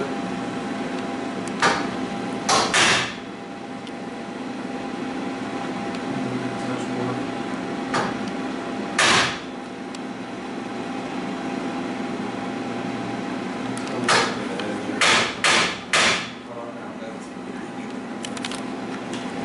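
Metalwork on a steel chassis frame rail: a run of short, loud bursts against the steel, three together a couple of seconds in, one near the middle and four more close together later on, over a steady shop hum.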